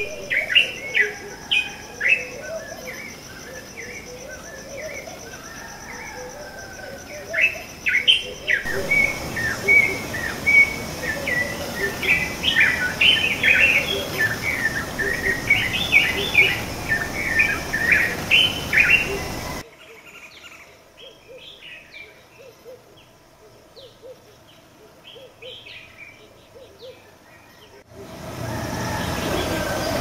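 Several birds chirping and singing together: a dense mix of short, high chirps and whistled calls. About 20 s in the birds become fainter and sparser, and near the end a steady rush of background noise comes in.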